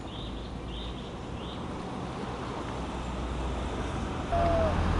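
Steady low outdoor rumble that slowly grows louder, with a bird chirping three times in the first second and a half; near the end a louder rumble cuts in suddenly.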